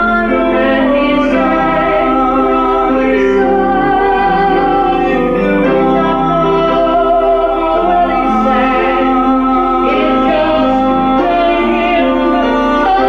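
Live singing with piano accompaniment: a man and a woman singing in turn or together, with long held notes.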